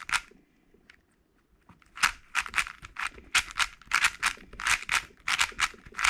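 MoFang JiaoShi RS4 M magnetic 4x4 speedcube being turned, its plastic layers clacking in quick succession, about three to four turns a second, after a short pause. The new cube is loud, which its owner puts down to it having little lube.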